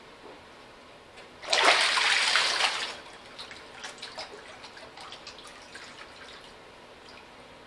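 Water splashing and pouring loudly off a steel lawn-tractor seat pan as it is lifted out of an electrolysis tank, for about a second and a half. Lighter dripping and trickling back into the tank follows.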